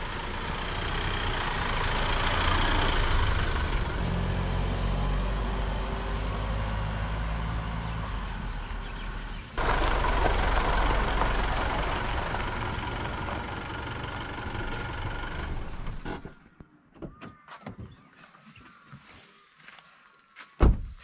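Isuzu D-Max ute driving on a dirt and gravel track, engine and tyre noise running steadily, then the engine stops about five seconds from the end. A few faint knocks follow, and a car door shuts with a loud thump near the end.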